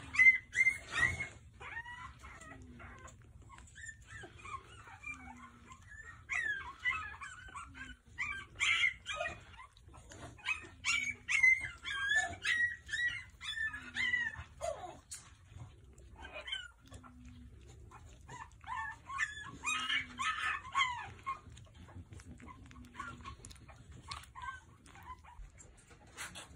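Four-week-old French bulldog puppies whimpering and squealing: many short, high-pitched cries that come and go in overlapping bursts, with quieter gaps between.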